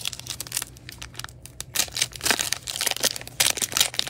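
Foil wrapper of a 2021 Panini Mosaic football card pack being opened, crinkling and crackling, sparser at first and denser and louder from about halfway through.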